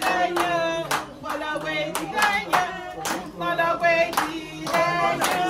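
Voices singing together over steady, rhythmic hand clapping.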